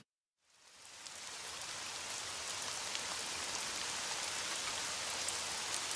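A steady, even hiss with faint scattered ticks. It fades in after a moment of dead silence at the start.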